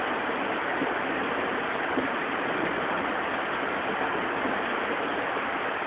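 Steady rush of water from a torrential downpour, with a flash flood running down the street.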